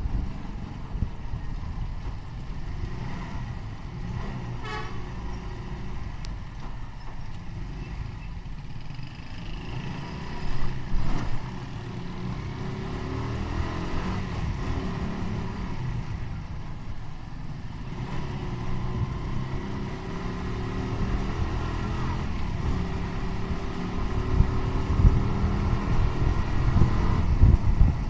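Riding on a motorcycle: steady engine and road rumble, with a vehicle horn tooting briefly a few times, the loudest near the middle.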